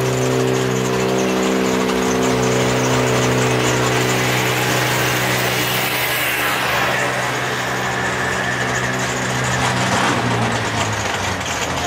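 High-horsepower drag race car engines running steadily at the starting line. About six seconds in the sound turns into a broader rush with a falling pitch as a car pulls away down the strip.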